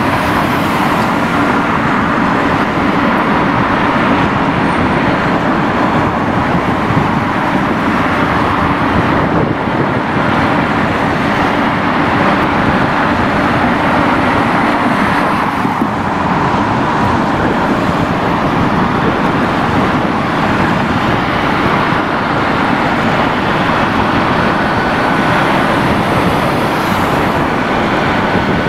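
Steady traffic noise: an even, unbroken roar of passing vehicles, with no single event standing out.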